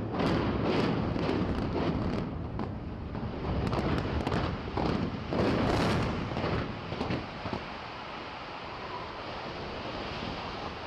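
Demolition of a concrete high-rise tower: a heavy rumble studded with sharp cracks and bangs as the structure collapses, dying down after about seven seconds into a steady windy hiss.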